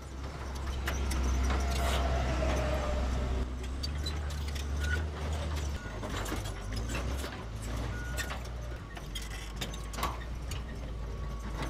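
Drilling rig running, a low engine rumble with metallic clicks and rattles as its auger bores into the ground. The deepest part of the rumble drops away about six seconds in, and the machine keeps running at a lower level.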